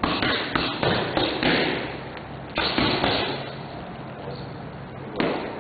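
Boxing gloves punching focus mitts: sharp slapping thuds, a quick run of strikes in the first second and a half, another about a second later, and one more near the end.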